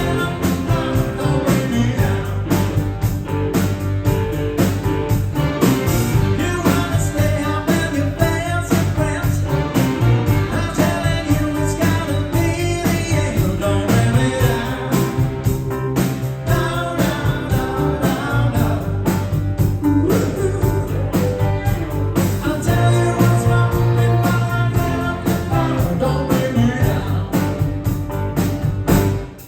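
Rock song performed live with singing, guitar and a steady drum beat; the sound drops out abruptly at the very end.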